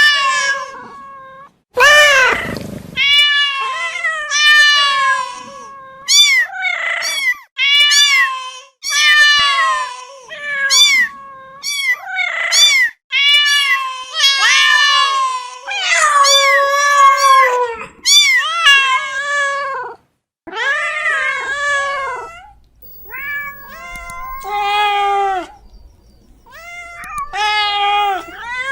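Domestic cats meowing over and over: a quick string of separate meows, some short and some drawn out, with only brief gaps between them.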